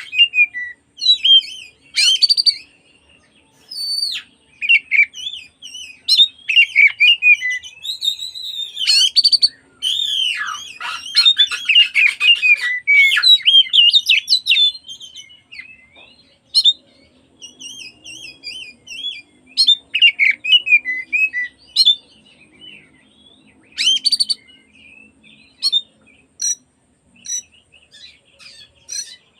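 Oriental magpie-robin singing a long run of varied whistled and chattering phrases broken by short pauses. The song is densest about ten to fifteen seconds in.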